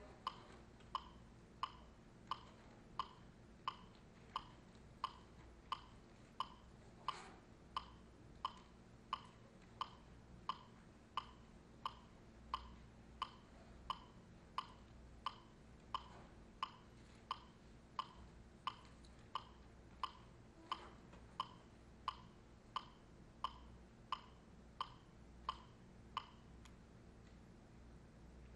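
A steady percussive tick, like a woodblock or metronome, sounding about three times every two seconds as a beat for the dancers, and stopping near the end.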